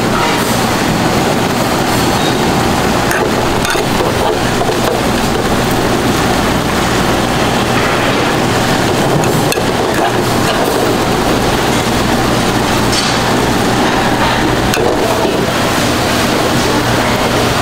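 Steady roar of gas stove burners with a low hum, and now and then a light clink of metal tongs against an aluminium ramen pot as the noodles are lifted and stirred.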